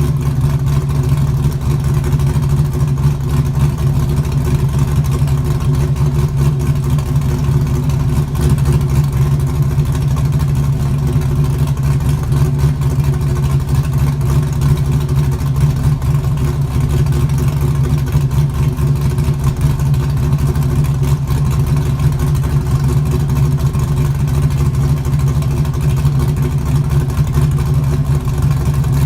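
LS1 V8 in a Mazda RX-7 running at a steady speed through an exhaust that has no rear mufflers, a loud, even drone with no revving.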